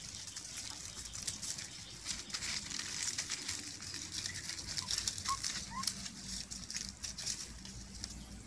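Puppies suckling and scrambling under a standing mother dog: quick, irregular small clicks and rustles, with two short high chirps about five seconds in.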